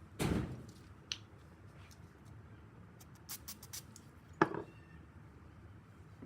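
Metal brake-caliper parts and tools being handled: a short noisy burst near the start, then a few light clicks and one sharp metallic knock that rings briefly.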